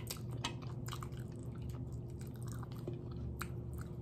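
Close-up eating sounds: quiet chewing with scattered short wet mouth clicks and smacks, over a low steady hum.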